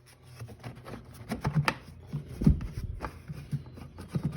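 Plastic air box of a Honda Rancher 350 ATV being worked up and out of the frame: irregular light clicks, knocks and scraping of plastic against the frame, with a louder knock near the end.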